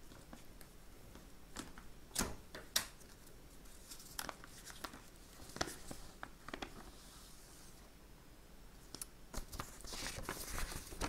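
A paper envelope being worked open and handled: faint, scattered tearing and rustling of paper, with more crinkling near the end.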